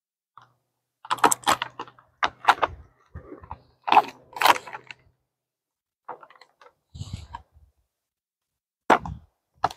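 Crinkling and crackling of a compost starter bag being handled and pulled at in an effort to open it, in irregular bursts, busiest in the first half.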